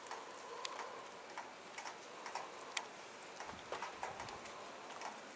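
Faint steady hiss of wind and rain with scattered irregular ticks and taps, like raindrops dripping onto hard surfaces.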